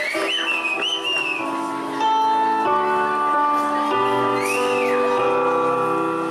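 Dance music starting up: slow, held chords that change every second or so, louder about two seconds in, with a bass line joining midway. A few high rising-and-falling whistles sound over it near the start and again near the middle.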